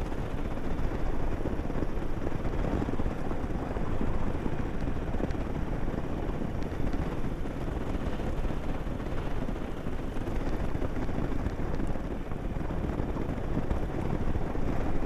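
Steady rush of wind and road noise from a motorcycle riding along a gravel road, its engine running underneath.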